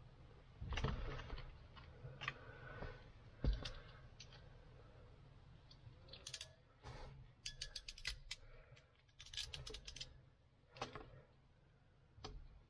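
Faint clicks, snips and rustling of hands working a car wiring harness with red-handled wire pliers. A busier run of sharp clicks comes about halfway through.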